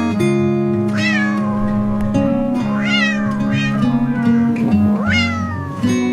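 A cat meows three times, about two seconds apart, each call rising and then falling in pitch, over soft background music.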